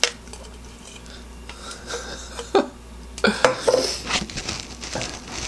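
Metal spoon scraping and knocking inside a clear plastic Magic Bullet cup while scooping out lumpy, half-blended frozen blueberries. There are scattered clicks and scrapes, the loudest cluster a little past three seconds in.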